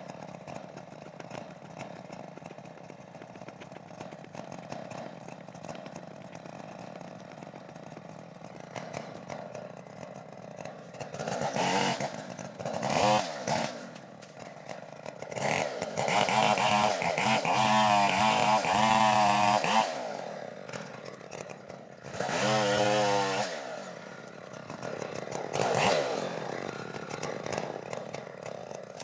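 Stihl chainsaw two-stroke engine running at low speed, then revved hard in several bursts, the longest about five seconds, its pitch wavering while at full throttle before dropping back each time.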